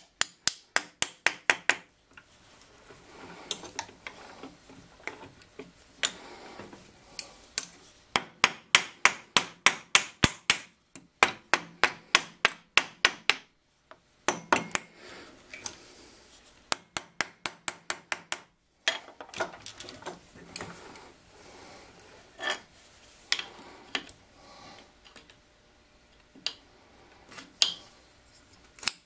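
Yellow plastic-faced mallet tapping thin copper covers onto the steel jaws of a three-jaw lathe chuck, forming the copper around each jaw. Runs of sharp light taps at about five a second with short pauses between them, turning to sparser single taps and rubbing and handling noise in the last third.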